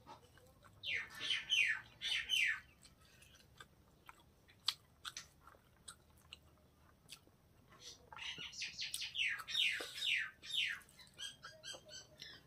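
Close-up chewing and wet mouth clicks of someone eating rice and pork by hand. Over them a bird calls twice, each time a quick run of falling chirps, about a second in and again from about eight seconds.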